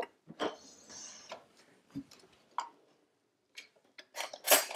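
Scattered light clicks and knocks of kitchen things being handled, then near the end a louder clatter of metal cutlery as a hand rummages in an open cutlery drawer.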